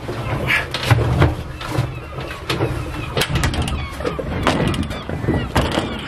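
Small boat's motor running at idle with a low steady hum, under a string of knocks and clunks on the boat's hull and fittings.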